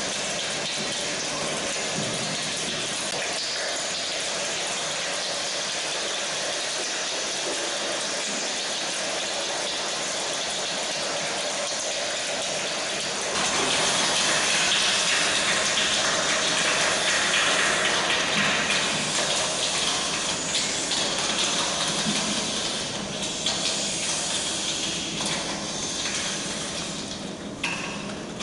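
A large group of children imitating rain with their hands, a crowd of body percussion that blends into a steady hiss. It swells louder about halfway through, like heavier rain, then thins out into scattered clicks and taps near the end.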